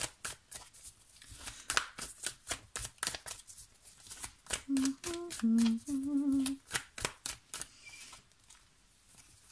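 A deck of cards being shuffled by hand: a quick, irregular run of crisp flicks that stops about eight seconds in. A few short hummed notes come about five seconds in, over the shuffling.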